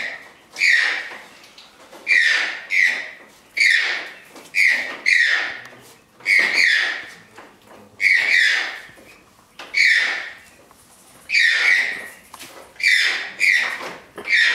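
Toucan calling over and over, a call roughly every second and often two in quick succession, each call falling in pitch.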